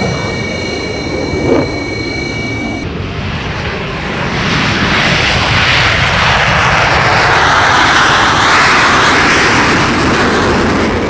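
F-16 fighter jet's engine: first a steady high whine with several tones, with a short thud about a second and a half in. From about three seconds in it becomes a broad rushing roar that grows louder, as the jet takes off down the runway.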